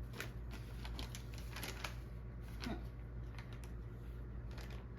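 Packing paper rustling and crinkling in scattered light clicks and crackles, a few seconds apart, over a steady low hum.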